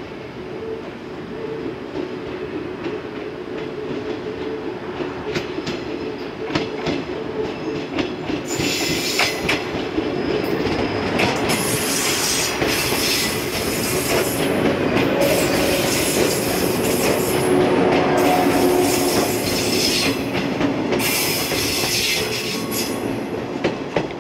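Yellow electric multiple-unit train, Okayama depot set A02, rolling past slowly on curved track, its wheels clicking over rail joints and points. From about eight seconds in, the wheels give repeated high-pitched flange squeals on the curve.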